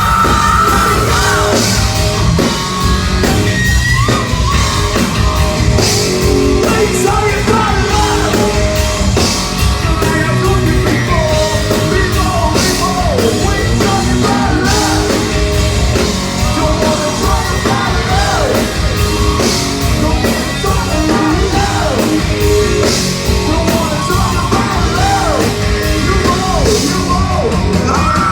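Live rock band playing loud, with drums and bass under an electric guitar line full of bending, sliding notes, as in an instrumental break or solo.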